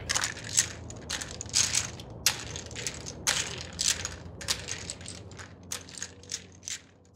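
Domino tiles being shuffled on a tabletop: a run of irregular hard clacks that grow fainter and sparser near the end.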